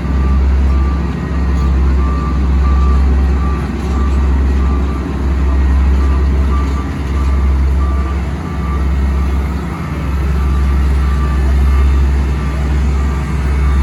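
Diesel engine of road-paving machinery running with a heavy, low drone that swells and eases every second or two, while a reversing alarm beeps repeatedly throughout.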